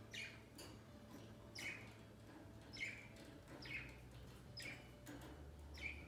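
Pet budgerigars chirping: a series of short, high chirps that fall in pitch, roughly one or two a second.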